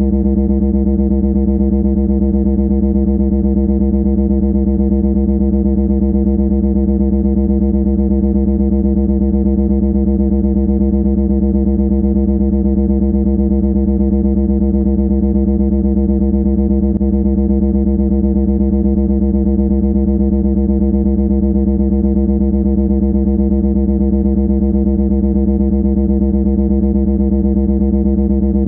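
Loud, steady buzzing drone on one unchanging low pitch, harsh and distorted, like an electronic annoying-noise tone.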